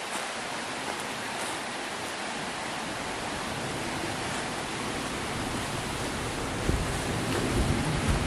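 Steady rush of a small rocky forest stream. Low buffeting from wind on the microphone comes in over the last couple of seconds.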